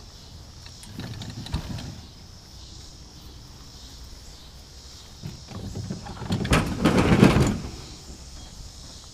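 BooneDOX Landing Gear kayak wheel mount being swung back up on the kayak's gear track: a short rustle with a knock about a second and a half in, then a louder scraping, sliding clatter near the end.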